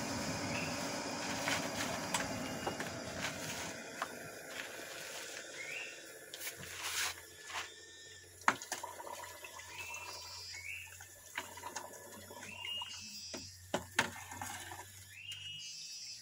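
A red-hot steel koret blade held in tongs is quenched in oil for hardening, the hot metal sizzling and bubbling in the oil, with a few sharp clinks of metal. A steady rushing noise in the first few seconds fades out about four seconds in.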